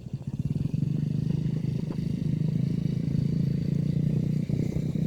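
Strong sea wind buffeting the microphone: a loud, steady low rumbling flutter.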